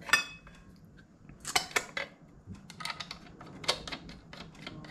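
Metal clinks and taps as a degree wheel and its centering adapter are fitted onto the crankshaft snout of a two-stroke Yamaha Banshee engine. A sharp clink that rings briefly comes right at the start, then scattered light clicks.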